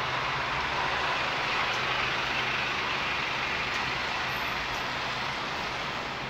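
Volvo B5LH hybrid bus pulling away from a stop and driving off, its drivetrain hum and tyre noise swelling as it passes about two seconds in, then easing as it moves away, over a steady hiss of road traffic.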